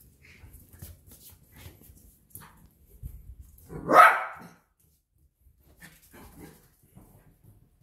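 A Bedlington Terrier puppy gives a single sharp bark about four seconds in, a demand for the ball to be thrown again. Faint clicks and rustles come before and after it.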